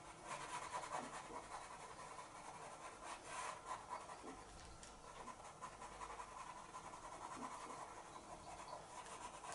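Faint scratching of a pastel pencil on pastel mat paper, in irregular short strokes.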